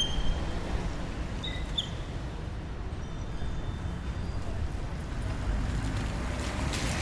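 European city street ambience on wet roads: a steady low rumble of traffic, with a few short high chirps early on and a car passing near the end, its tyres hissing on the wet road.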